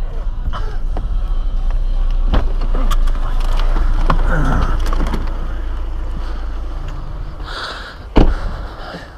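Low rumble of a car's engine and tyres heard from inside the cabin as it drives and slows, with some shuffling and rattling. About eight seconds in, a car door slams once, the loudest sound here.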